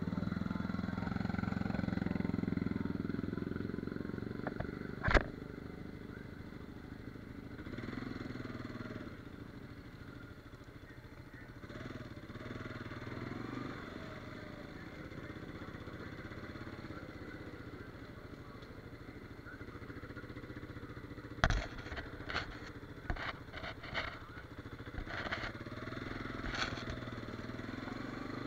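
Quad bike (ATV) engine running as the quad rides along a gravel trail, heard from the rider's seat, louder in the first few seconds. A single sharp click about five seconds in, and several sharp knocks and rattles in the last third as the quad jolts along.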